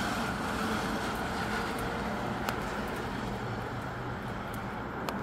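Steady rain and breezy wind with a low rumble underneath, broken by two sharp ticks, about halfway through and near the end.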